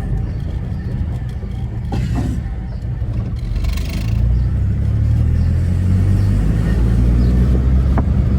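Turbocharged Chevrolet Corsa engine running under way, a deep steady drone that grows louder about four seconds in as the car pulls harder. There is a brief hiss just before it.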